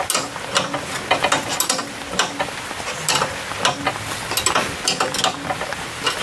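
Coil spring compressor being cranked by hand with a 19 mm wrench on a car's front coil spring: irregular metallic clicks, a few each second, over a steady hiss. The spring is being compressed so the lower control arm can come out.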